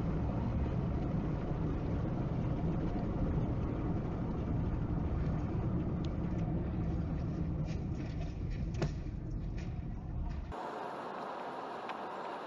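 Cabin road noise from a dashcam in a car driving at motorway speed: a steady rumble of tyres and engine, with a sharp knock about nine seconds in. Near the end, after a cut, it changes abruptly to a thinner, hissier road noise from another car driving in the rain.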